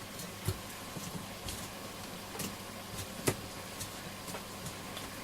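A few light clicks and taps of small parts being handled on a workbench, over a low steady hum.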